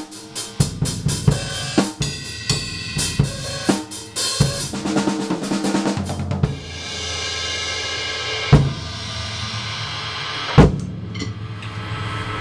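Sound Percussion drum kit with Wuhan cymbals played in a solo, on its cheap stock drumheads: a fast run of snare and tom strokes for about the first six seconds, then cymbals ringing out with two loud accented hits about two seconds apart.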